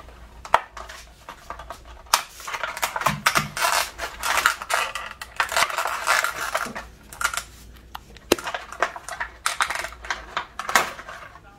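Crinkly foil-and-plastic toy wrapper rustling and crackling as it is cut open with scissors and handled, with sharp clicks scattered throughout.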